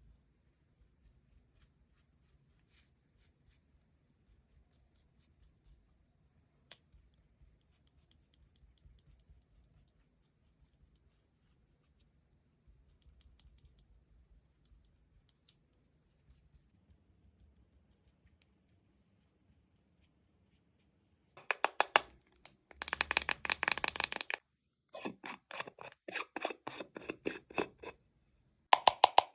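Close-miked ASMR scratching and tapping from hands and props worked on a melon: faint scattered ticks for most of the time, then, about two-thirds of the way through, several runs of loud, rapid, crackly scratching with short breaks between them.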